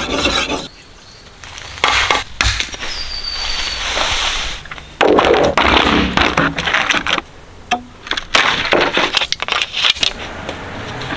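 A knife blade scraping on a whetstone, then a run of sharp knocks, cracks and clatter from bamboo poles being handled and laid down on the ground.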